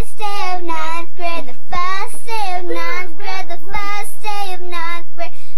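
A girl singing in a high voice, close to the microphone, with held notes that slide up and down. Two low thumps come about two seconds apart under the singing.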